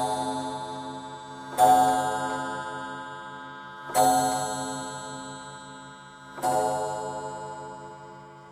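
Grandfather clock striking, three strokes about two and a half seconds apart, each a rich bell-like tone that rings on and slowly fades, over the clock's steady ticking.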